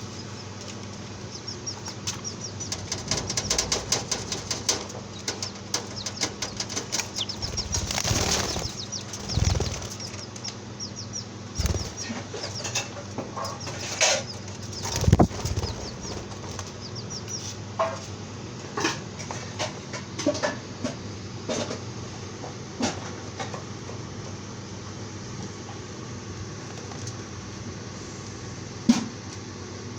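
Small birds twittering in a fast run of high chirps for the first several seconds, then flapping wings and scattered knocks and low thumps. A single sharp knock near the end is the loudest sound.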